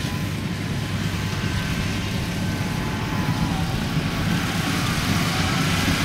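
Yanmar AW82V combine harvester's diesel engine running steadily as it works the rice field, a continuous low hum.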